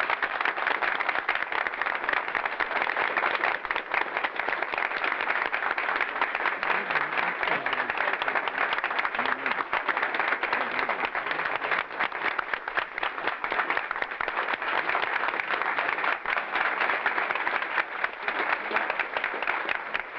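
A long, steady round of applause from a large audience.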